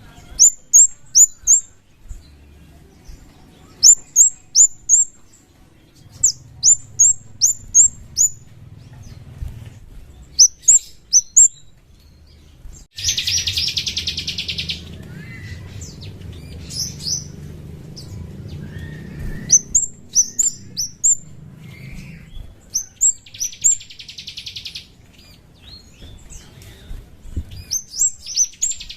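Kemade bird calling: quick runs of three to five sharp, very high chirps, each dropping in pitch, broken by three buzzy rattling trills of a second or two, the first about halfway through and the last at the very end.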